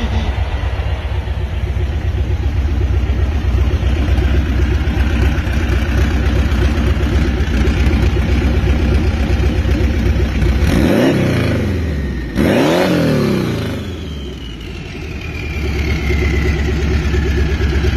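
Air-cooled Volkswagen flat-four engine idling steadily. It is revved twice in quick succession, about eleven and twelve and a half seconds in, and each time drops back to idle.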